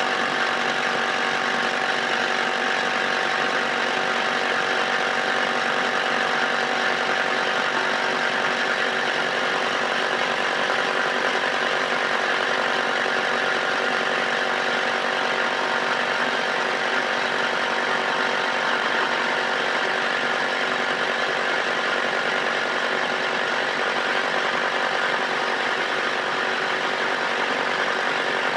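A motor running steadily: a continuous mechanical drone made of several steady tones, with no change in speed.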